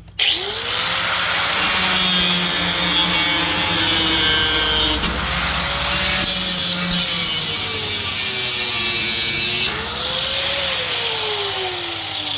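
High-speed power cutting tool cutting protruding screws off flush. The motor spins up sharply at the start, its pitch dips a few times as the cut loads it, and it winds down near the end.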